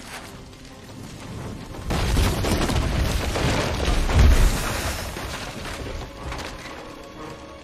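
Wooden treehouse burning: a sudden loud rush of fire with a deep boom about two seconds in, swelling to a peak around four seconds and then slowly fading.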